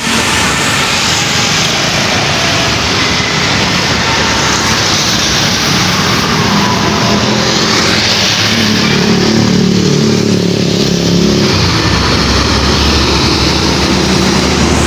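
A large tour bus's engine running as it drives past, over loud steady road and traffic noise. A deeper engine note rises out of the noise about eight seconds in and fades again around eleven seconds.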